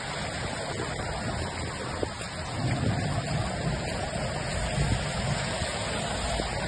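Muddy flash-flood runoff rushing along a street in heavy rain: a steady wash of flowing water and falling rain.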